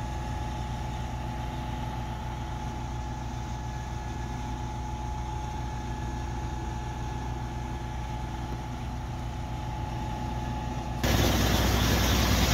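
Concrete pump truck's diesel engine running steadily, heard from a distance, with a steady whine over the drone. About eleven seconds in it cuts abruptly to a louder, rougher noise close by.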